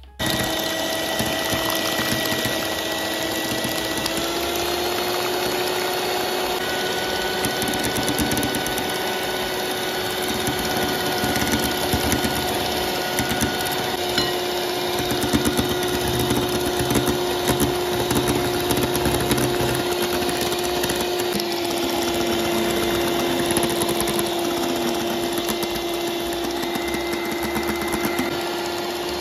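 Electric hand mixer switching on and running steadily, its twin wire beaters whisking egg yolks and sugar in a glass bowl. Its hum steps up slightly in pitch a few seconds in.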